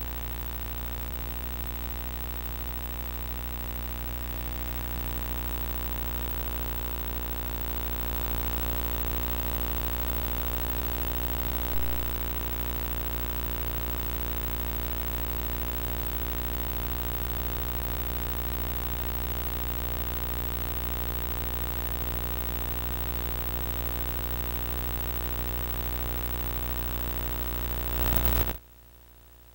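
Steady hiss with a low electrical hum, unchanging, with no distinct game sounds standing out. It drops away abruptly near the end.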